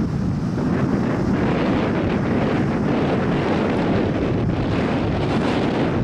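Strong typhoon-driven wind buffeting a compact camera's built-in microphone: a steady rushing noise, heaviest in the low end, with no let-up.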